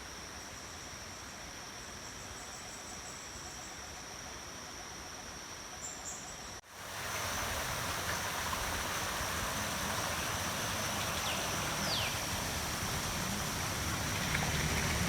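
Outdoor ambience of insects holding a steady high-pitched drone over a background hiss. About halfway through it cuts off sharply and comes back with the hiss louder, with one brief falling whistle near the end.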